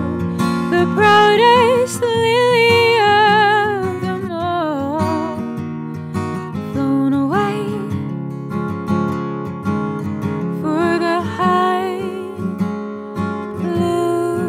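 A woman singing a slow ballad live, holding long, wavering notes with a rising slide about halfway through, over acoustic guitar accompaniment.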